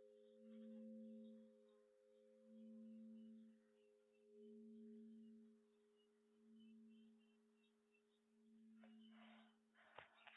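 A struck bell's faint, lingering hum dying away, a few steady tones swelling and fading about every two seconds. A click comes near the end.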